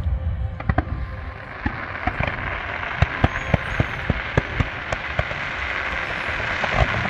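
Fireworks display: a rapid, irregular series of sharp bangs and pops, densest from about three seconds in, over a steady hiss that builds up from about two seconds in.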